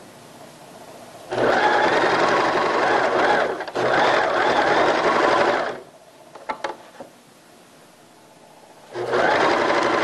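Domestic electric sewing machine stitching in runs: about two seconds, a brief break, two more seconds, then a pause with a few light clicks, and another run near the end. It is sewing the elastic casing into the waistband of cotton knit baby pants.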